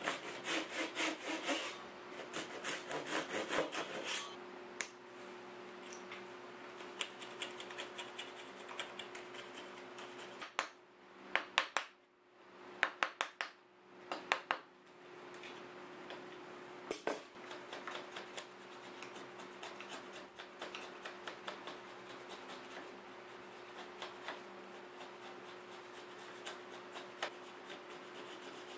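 A fine-toothed hand saw cuts walnut in rapid strokes for the first four seconds. After that a chisel pares and scrapes the walnut joints in lighter strokes, with a few sharper, louder cuts around the middle.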